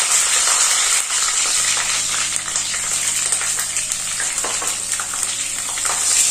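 Halved green chillies and julienned ginger sizzling in hot mustard oil with fenugreek seeds in a wok, a steady hiss with scattered pops. Near the end a silicone spatula starts stirring them.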